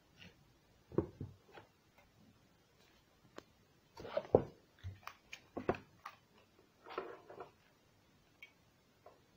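Hands handling a glitter-foam-covered cardboard tissue box on a wooden table: scattered light taps and brief rustles, the loudest cluster about four seconds in.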